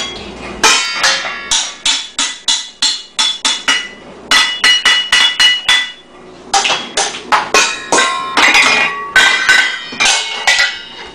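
Wooden spoons banging on upturned stainless steel mixing bowls, a colander and pot lids in fast, uneven strikes, each hit ringing out metallically; the beating pauses briefly about six seconds in, then carries on.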